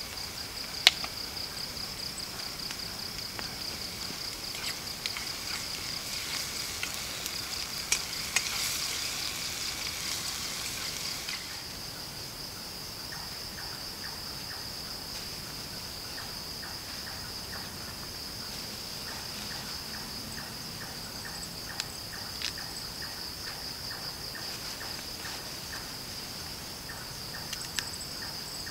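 Night insects, crickets chirping in a steady, fast pulsing trill. A few sharp knocks sound over it, the loudest about a second in, and a brief hiss runs from about eight seconds in. From about halfway a slower, regular ticking call joins.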